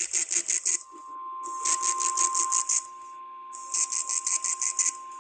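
Weather-radio Emergency Alert System signalling: repeated bursts of rapid, rattling data pulses, each about a second long with short gaps between. From about a second in, a steady single-pitched alert tone sounds underneath, which fits the NOAA Weather Radio 1050 Hz warning tone.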